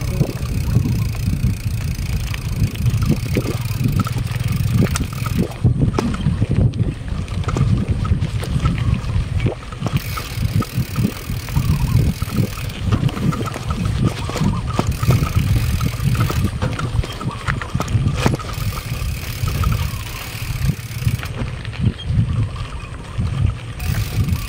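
Wind buffeting the microphone of a moving bike, with irregular knocks and rattles as it jolts over a rough dirt track.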